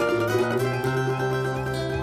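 Samba-enredo accompaniment played on plucked strings, cavaquinho and guitar, over a steady held bass note, with no singing yet.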